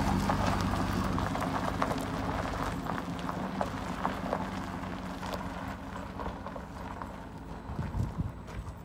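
Cadillac Escalade's engine running as the SUV pulls away, fading out, with gravel crackling and popping under its tyres.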